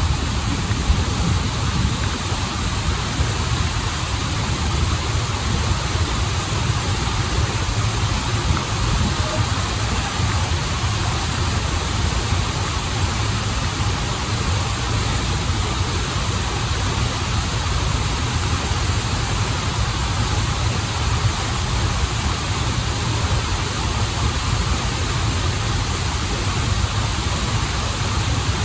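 Waterfall and river water rushing steadily: a deep, even rumble under a constant hiss.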